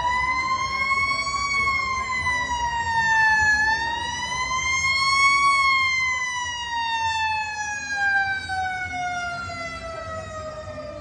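Emergency vehicle siren wailing: its pitch rises and falls twice, then slides slowly down as it winds down.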